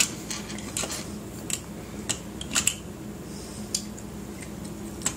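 Irregular light clicks and taps of a hard plastic toy reindeer being handled on a tabletop, about one a second.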